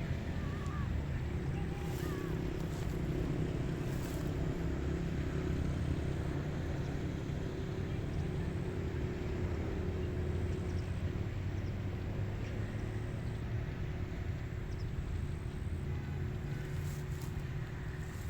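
Rice-paddy outdoor ambience: a steady low rumble with a faint hum in it, a few faint bird chirps in the first couple of seconds, and a few light ticks.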